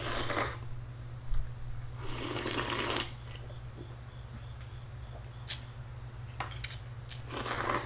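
A person slurping instant ramen noodles off chopsticks: three noisy slurps, one at the start, one about two seconds in lasting about a second, and one near the end, with faint clicks between.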